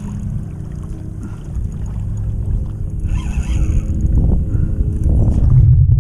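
Wind buffeting the microphone in a loud low rumble that grows stronger near the end, with a brief hiss about three seconds in.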